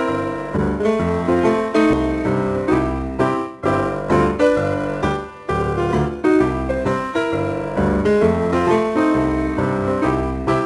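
Background music led by piano or keyboard, with a steady bass pattern and a regular beat.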